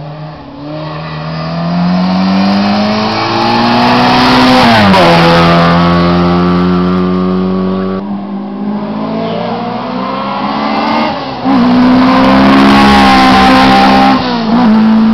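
Hillclimb race cars going by at full throttle, two passes one after the other. Each engine note climbs as the car accelerates up the hill and drops in pitch as it goes past, and there is a brief dip like a gear change near the end.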